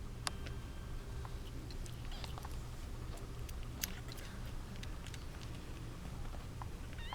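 Two-week-old kittens making faint squeaks amid scattered small clicks and rustles, over a steady low hum. Just before the end, one kitten gives a loud mew that rises and then falls.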